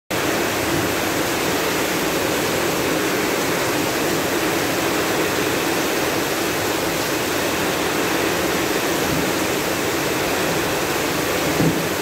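Heavy rain pouring down steadily onto a street, a dense unbroken hiss.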